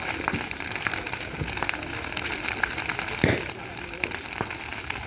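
Holika bonfire crackling, with many small sharp snaps and one louder pop about three seconds in.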